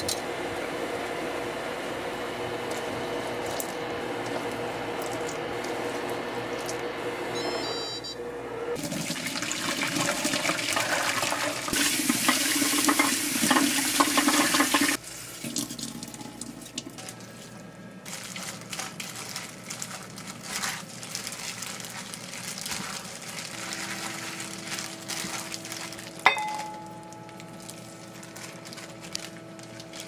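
Pot of noodles boiling steadily, then a kitchen tap running hard into a stainless steel sink as the cooked noodles are rinsed in a mesh strainer, cut off suddenly about halfway through. Quieter clicks and handling noises follow, with one sharp click near the end.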